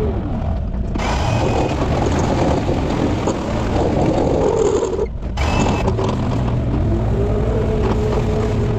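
Can-Am engine running under load, its pitch rising and falling, while the snowplow blade on carriage-bolt skid shoes scrapes and rattles along the snow-covered road. The sound breaks off briefly about five seconds in.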